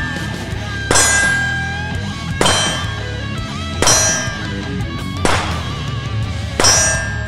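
Five pistol shots about a second and a half apart, each followed by the clang and ringing of a steel plate target being hit.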